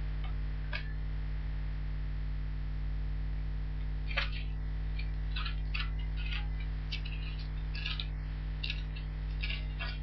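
Pages of a Bible being leafed through: short, light paper rustles and flicks, more of them in the second half, over a steady electrical hum.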